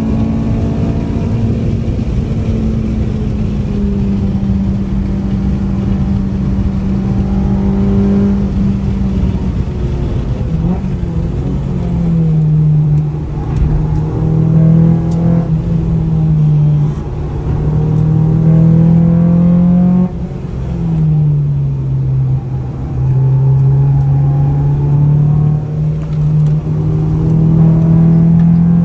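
Honda Civic's four-cylinder engine heard from inside the cabin at speed on a race track, the note holding high, dropping sharply twice, about twelve and twenty seconds in, and climbing again each time. A steady rumble of road and tyre noise runs underneath.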